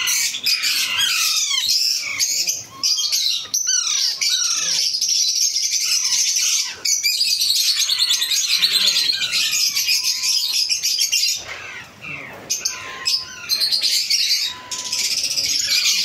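Alexandrine parakeet chicks begging for food: short, high, falling chirps at first, then long runs of rapid, insistent high-pitched calls, with a brief lull a little past the middle.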